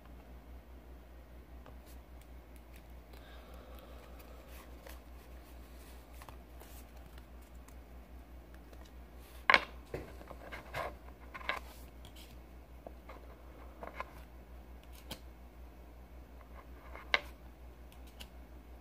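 Pokémon trading cards being handled and flipped through one by one: quiet sliding with scattered sharp snaps and flicks of card against card, the sharpest about halfway through and another near the end, over a low steady hum.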